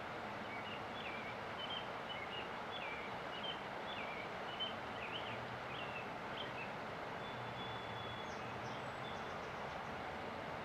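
Steady rush of river water with a songbird singing a quick run of short chirps for the first several seconds, then one held high whistle.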